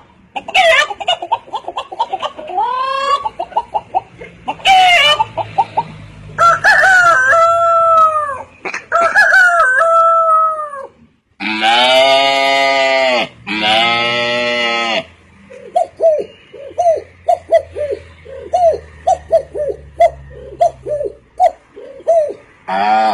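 A man's voice imitating chickens: a string of rising and falling cackles, two long, loud crowing calls in the middle, then a quick run of short clucks near the end.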